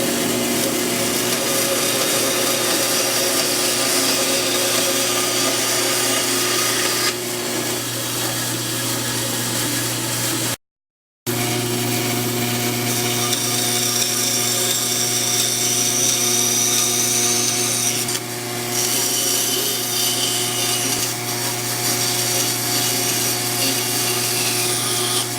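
Electric power saw running and cutting Baltic birch plywood, a steady motor hum under the noise of the cut. The sound drops out completely for about half a second just before the middle.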